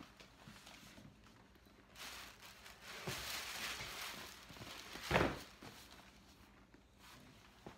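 Rustling of a handbag dust bag and packing paper as they are handled, with a single dull thump about five seconds in.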